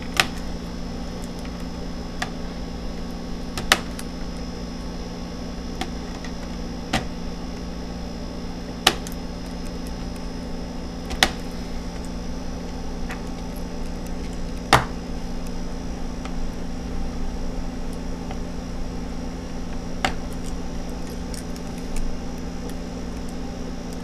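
Sharp little clicks and taps, a few seconds apart, from a small screwdriver working at the ribbon-cable connectors and screws inside an opened laptop, over a steady low hum.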